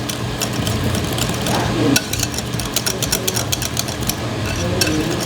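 Ube puto batter being stirred in a bowl: a utensil clicks and scrapes against the bowl many times in quick succession, over a steady low hum.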